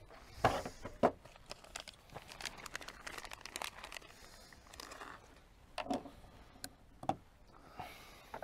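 Scattered clicks, knocks and rustling from handling gear and ammunition at a shooting bench, with a few sharper knocks about half a second and a second in and again near the six- and seven-second marks.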